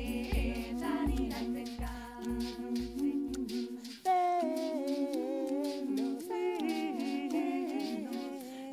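Women's vocal group singing Occitan polyphony a cappella: several voices over a held low drone. A deep thump sounds about every two-thirds of a second at first and fades out; about four seconds in, the sound changes abruptly and a higher voice line enters above the drone.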